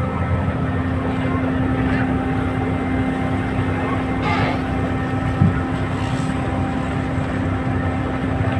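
A boat engine running steadily, a constant drone with a low hum. There is a brief faint voice about four seconds in and a short knock a second later.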